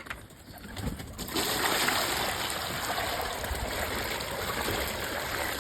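Water pouring steadily into a pigeons' bath pan, starting about a second in.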